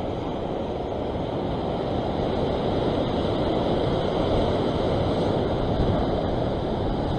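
Ocean surf washing over a rock ledge, a steady rushing of water that grows a little louder around the middle.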